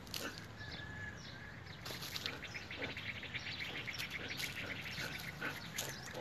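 Small birds chirping. From about two seconds in there is a fast, even chattering trill lasting about three seconds.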